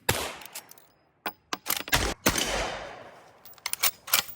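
A pistol with a grip safety firing a string of shots: about a dozen sharp cracks in uneven groups, some in quick succession, several trailing a short echo.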